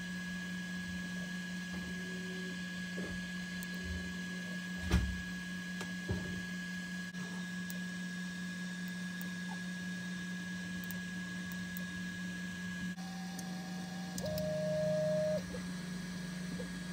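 Creality Ender 3 3D printer running with a steady fan hum and a thin high tone, with a soft thump about five seconds in and a smaller one about a second later. Near the end a stepper motor whines for about a second as the print head moves.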